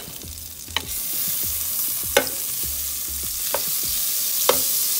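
Butter melting and sizzling in a hot pot as it is pushed around with a wooden spoon: a steady hiss that grows louder about a second in. Four sharp clicks break through the sizzle.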